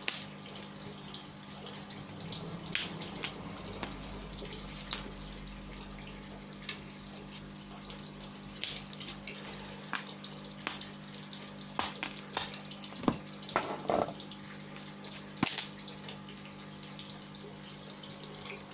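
Crinkling and rustling of parcel wrapping being handled, with scattered small clicks and taps, over a steady low hum.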